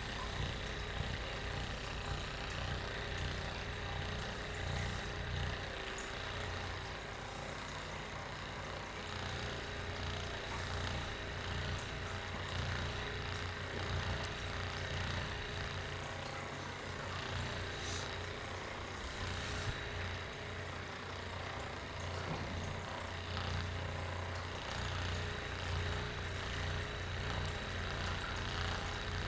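Electric handheld massage device with an infrared heat light running on the muscles, a steady low buzzing hum with a faint high whine.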